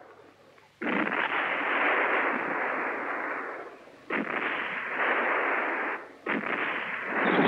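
Three explosions, each starting with a sudden blast and trailing off in a rumble lasting two to three seconds; the third runs into the following narration.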